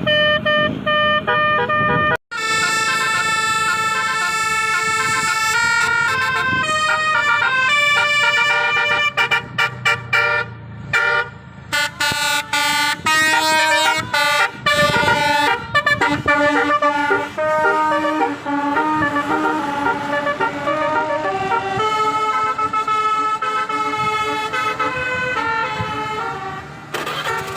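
Tour bus telolet horn, a Basuri multi-tone melody horn, playing a quick tune of stepping notes, with a sudden break about two seconds in before the tune goes on.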